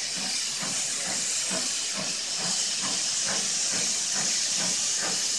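Strasburg Rail Road No. 90, a 2-10-0 steam locomotive, pulling a freight train: a steady hiss of steam with exhaust chuffs coming about two to three times a second, slowly getting louder.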